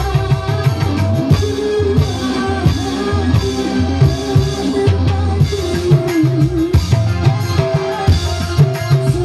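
Live dangdut band music: electric guitar and a drum beat under a bending melody line.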